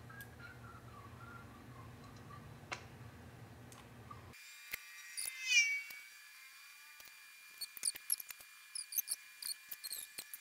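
A single high-pitched cry, falling steeply in pitch, about five seconds in, with a run of short faint clicks near the end.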